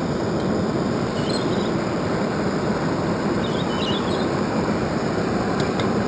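Metal-melting furnace running with a steady, even rushing noise, with a few short high chirps over it.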